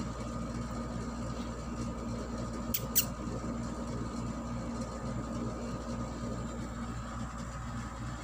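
A steady machine hum with a low rumble, and two brief, sharp high-pitched squeaks close together about three seconds in.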